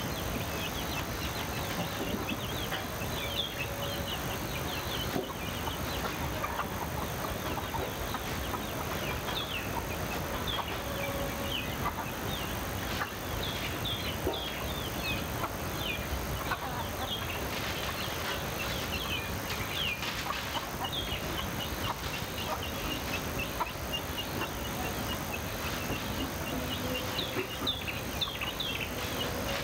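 Chickens clucking among many small birds chirping, with short high chirps coming thick and fast throughout, over a steady background hiss.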